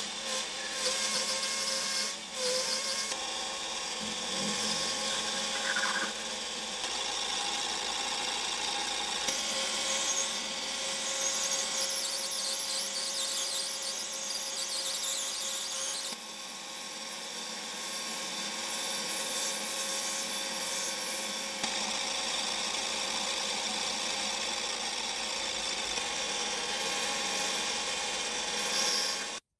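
Metal lathe running with the cutting tool turning down bar stock for an M16 bolt, a steady hissing cutting noise over the machine's tones, dropping a little in level about halfway through.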